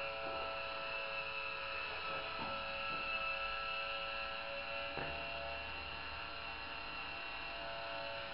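Sky-Watcher SynScan AZ GoTo mount's electric servo motor whining steadily as it slews the telescope tube in altitude, with a few faint ticks from the drive.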